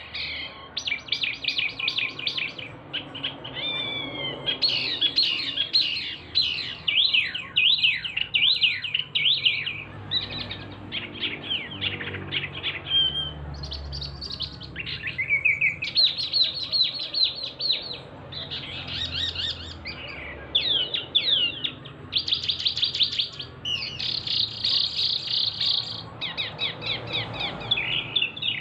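A caged wambi mini, a small Javanese songbird, singing loudly in fast trilling, chattering phrases, one after another with short pauses between them.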